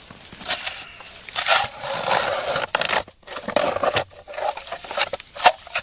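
Hand ice auger's blades cutting into ice and slush, a coarse grinding crunch in uneven strokes with a short break about three seconds in.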